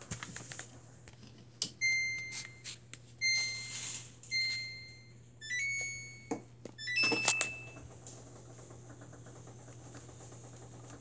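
Samsung WF45N5300AW front-load washer's control panel beeping as its buttons are pressed. There are three even beeps, then a quick run of short rising notes and a couple of higher beeps, with small clicks of the buttons among them.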